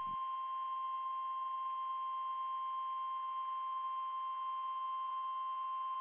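Emergency Alert System attention tone: one steady, unbroken single tone announcing a National Weather Service flood warning.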